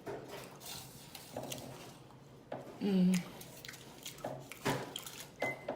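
A person chewing and smacking their lips while eating, with scattered wet mouth clicks, and a short hummed "mm" about three seconds in.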